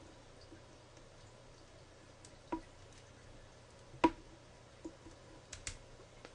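Small plastic clicks and taps from an SD card being pushed into the slot behind the back door of a Nook Color e-reader: one click about two and a half seconds in, a sharper, louder one about four seconds in, then a few lighter ticks.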